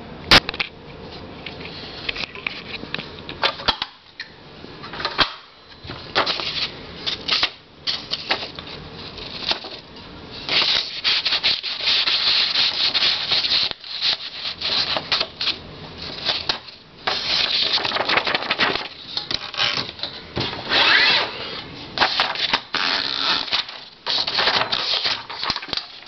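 1949 Empire Aristocrat typewriter being typed on: keys and typebars clacking, scattered strokes at first, then fast dense runs with short pauses between them from about ten seconds in.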